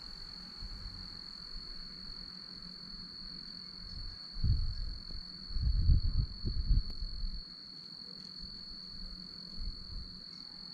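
Crickets trilling in a steady, unbroken high chorus. Low, uneven rumbles come in about four seconds in and again around six seconds, louder than the crickets.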